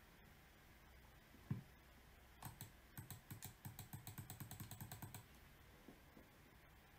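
A rapid run of clicks at a computer, about eight a second for nearly three seconds, after a single thump about a second and a half in.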